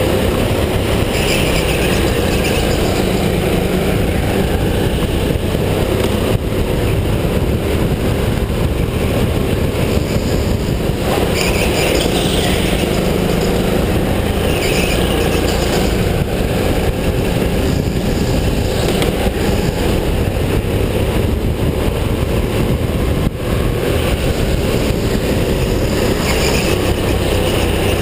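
Go-kart running flat out around a track, heard from a camera mounted on the kart: a steady, loud mix of engine and rolling noise.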